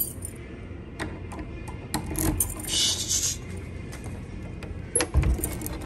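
Door lock and lever handle being worked: a run of sharp clicks, a short rattle about three seconds in and a heavier thump about five seconds in.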